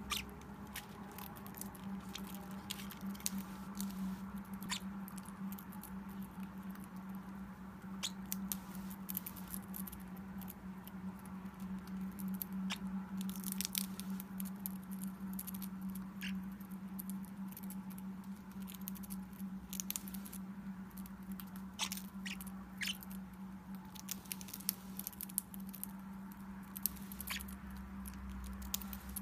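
A parrot nibbling a water-rinsed spicy shrimp cracker held in its foot: many small, irregular clicks and crunches from its beak, over a steady low hum.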